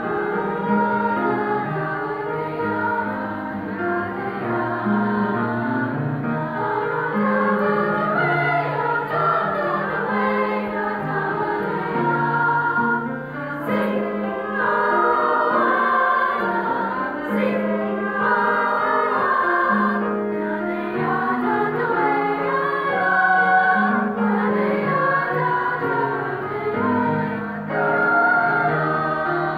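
Mixed choir of men's and women's voices singing together in parts, low and high voices sounding at once.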